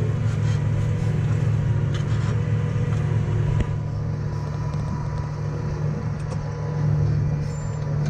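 New Holland tractor's diesel engine running steadily under load while ploughing, heard from inside the cab as a constant low drone. It dips slightly in level a little past halfway.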